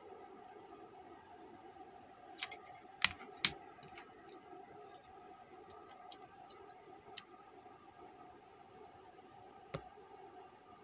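Scattered light clicks and taps from handling a car stereo's circuit board and a USB flash drive on a workbench, with three sharper clicks between about two and three and a half seconds in and another near the end, over a faint steady hum.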